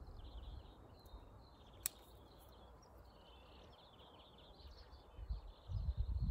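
Small birds twittering and singing, faint and continuous, with a single sharp click about two seconds in and a few low thuds near the end.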